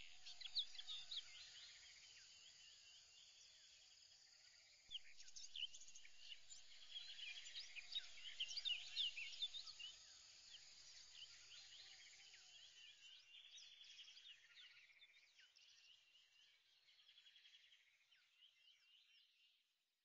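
Faint chorus of many small birds chirping, with quick short high calls overlapping. It gets busier about five seconds in, then fades out toward the end.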